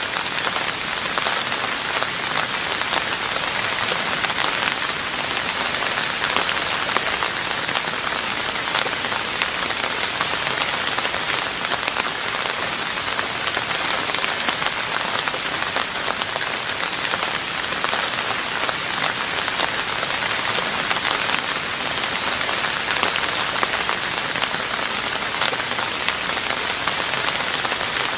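Steady rain falling on a roof, a dense even patter of many drops.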